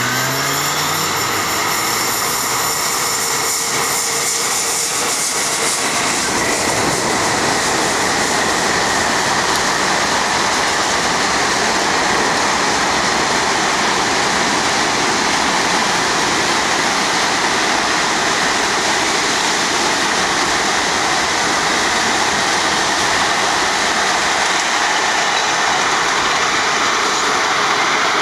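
Electric freight train running past close below: a long line of freight wagons rolls by with a loud, steady rumble and rattle of steel wheels on the rails. A few gliding tones from the passing locomotive are heard in the first seconds.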